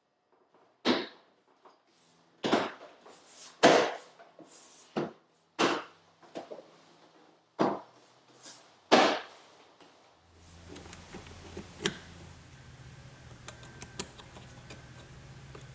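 A series of about seven sharp knocks at uneven intervals of roughly a second, then from about ten seconds in a steady low hum with faint ticking.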